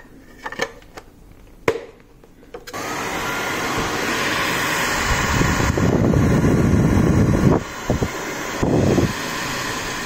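A few light plastic clicks as a concentrator nozzle is fitted onto a Remington D3190 ionic hair dryer, then the dryer is switched on about three seconds in and runs with a steady rush of fan and air noise, dipping briefly near the end.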